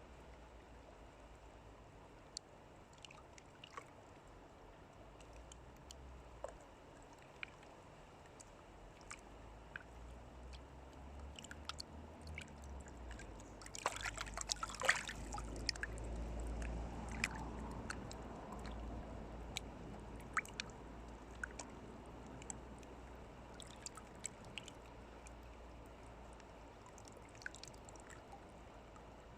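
Faint trickling water with scattered small clicks, growing louder and busier for a few seconds about halfway through, with a low rumble underneath then.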